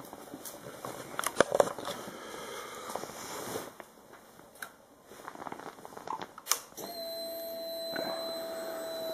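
Scattered clicks and rustling, the sharpest in the first two seconds, then one more click about six and a half seconds in. From about seven seconds a steady whine from the 2003 Suzuki GSX-R 750 starts, typical of its electric fuel pump priming once the ignition is switched on, ahead of a cold start.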